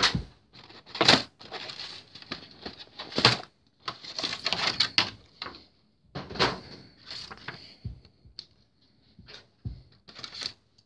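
Plastic packaging being handled: a moulded plastic tray and its insert rustling, crinkling and clicking in short irregular bursts.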